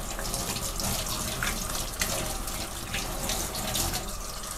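Kitchen tap running into a stainless steel sink, the stream splashing over hands and a baby bottle being rinsed under it, with a few sharper splashes.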